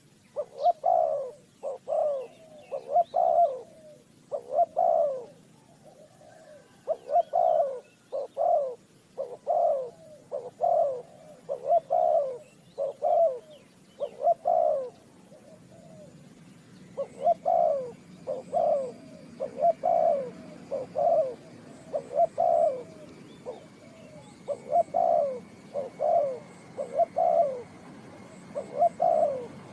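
Spotted dove cooing: a long run of short, low coo notes in repeated phrases, with a brief pause about halfway through.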